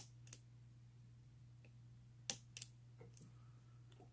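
Sharp little metal clicks from a lock pick working the pin stack inside a Master Lock Pro Series 7035 padlock during single-pin picking, coming in pairs with pauses between.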